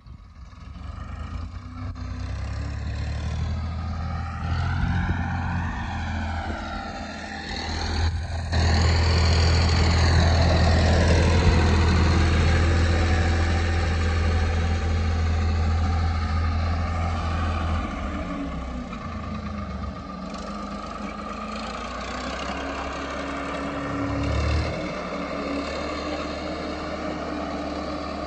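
Diesel tractor engine running steadily under load as it drags a disc harrow through tilled soil. It grows louder about eight seconds in as it comes close, and eases off after about eighteen seconds.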